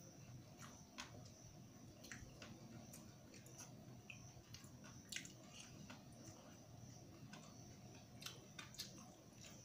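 Faint, irregular wet squishing and small clicks of fingers kneading rice and dal on a steel plate, with chewing.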